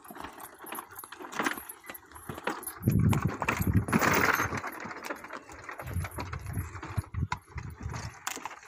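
Horse-drawn cart on a dirt road: the horse's hooves clopping and the wooden cart rattling, a string of sharp knocks and clicks, with heavier low rumbles about three seconds in and again around six to seven seconds.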